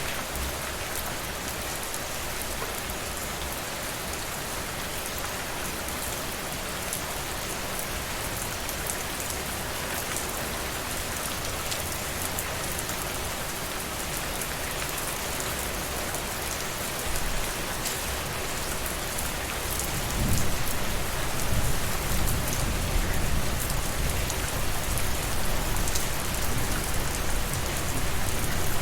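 Steady rain falling and pattering on surfaces, with scattered individual drop ticks. About two-thirds of the way through, a low rumble swells in under the rain and stays.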